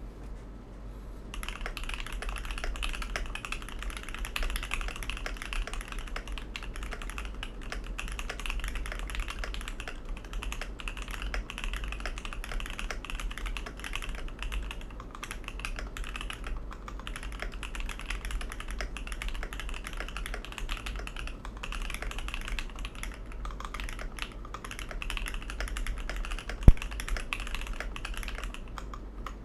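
Continuous fast typing on a custom KBD67 Mk II mechanical keyboard with a brass plate, Krytox-lubed and filmed Alpaca V2 linear switches and PBT Cherry-profile keycaps, starting about a second in. One much louder sharp click stands out near the end.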